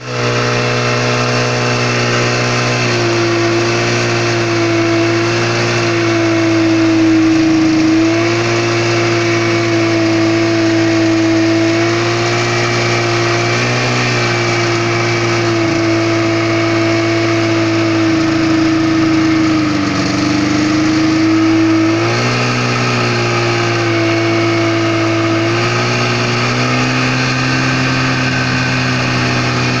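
Snowmobile engine running steadily while riding along a snow trail, heard from the rider's seat. Its note shifts up and down a few times as the speed changes.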